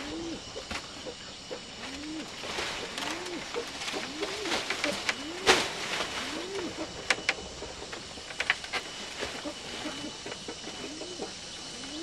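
A dove or pigeon cooing over and over, each low coo rising and then falling. Under it, dry palm leaves rustle and bamboo knocks a few times, the sharpest knock about halfway through.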